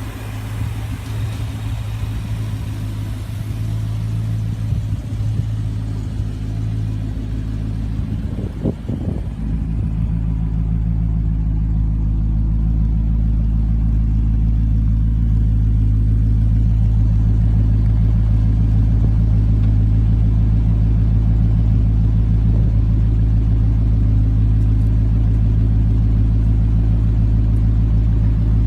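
Rover 3500S's 3.5-litre V8 engine running steadily with a low rumble. A short blip comes about eight to nine seconds in, after which it runs a little louder and steadier.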